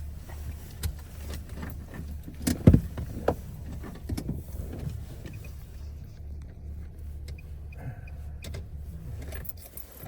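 A low, steady motor hum with scattered knocks and thumps; the loudest thump comes about two and a half seconds in.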